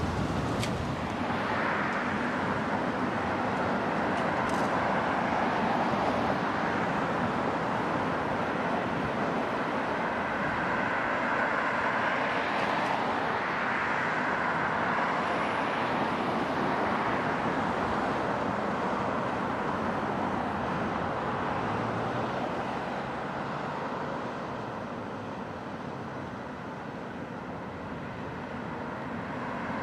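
Steady street-traffic noise with an electric streetcar running along its track, growing fainter over the last several seconds as it moves away.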